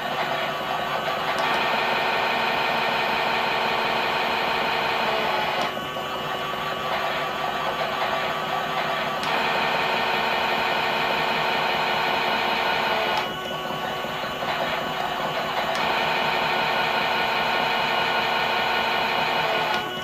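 Klein toy Miele Softtronic washing machine running its wash, the small electric motor whining as it turns the drum. The whine switches every few seconds, with a click, between a louder, brighter tone and a duller, quieter one.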